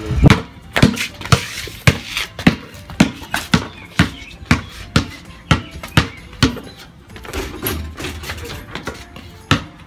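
Basketball dribbled on an asphalt driveway: a sharp bounce about twice a second, growing sparser and less regular over the last few seconds.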